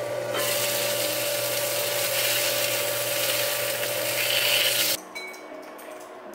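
Food sizzling in a pan on the stove, a steady hiss over a constant low hum, which cuts off abruptly about five seconds in.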